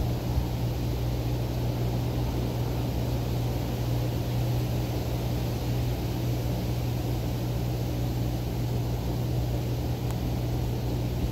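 Steady low background rumble with a constant hum underneath, unchanging throughout; no bow shot is heard.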